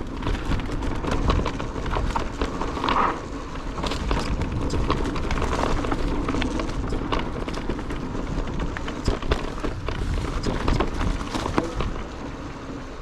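Cube Stereo Hybrid electric mountain bike ridden over a rough bike-park trail: tyre noise and the frequent knocks and clatter of the bike over bumps, with a steady low wind rumble on the microphone.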